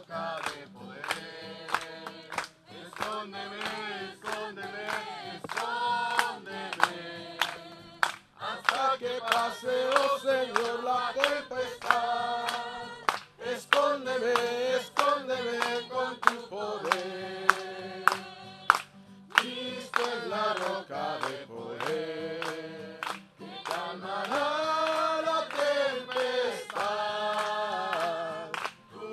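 A congregation of men and women singing a Spanish-language hymn together, with hands clapping along to the beat.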